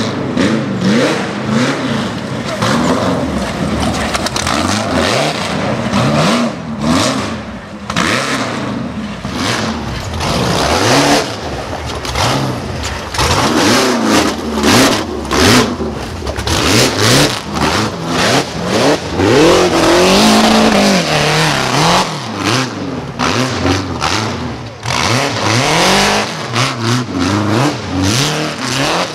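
Rock bouncer buggy's engine revving hard over and over, its pitch rising and falling as the driver blips the throttle, under load while clawing up a rocky hill climb, with short sharp cracks and bangs mixed in.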